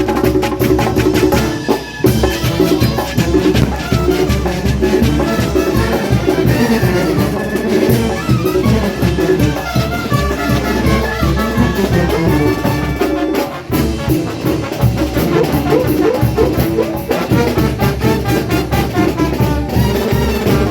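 Mexican brass band playing a lively Latin dance tune, trumpets and trombones over a steady drum beat, with a brief break about two-thirds of the way through.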